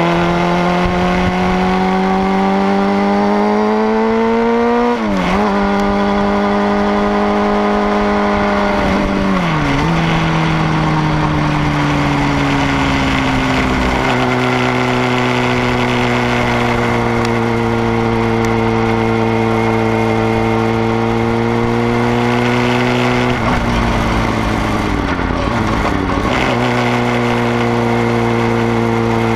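Sport motorcycle engine running under way, its pitch rising as it accelerates and then dropping sharply at gear changes about five and ten seconds in. It holds a steady pitch through the middle, then dips several times near the end, with low wind rumble on the microphone throughout.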